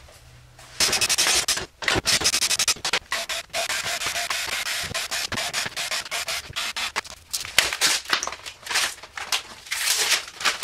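Dense, irregular rustling, scraping and clicking as a snare drum is stripped down: hardware coming off the thin wooden shell, and near the end the plastic wrap being peeled away from it.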